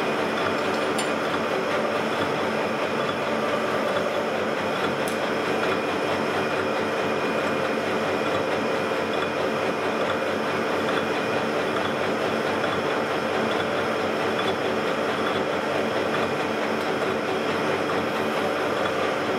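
Gear-hobbing machine running steadily while milling gear teeth: a continuous mechanical whir with several steady tones in it.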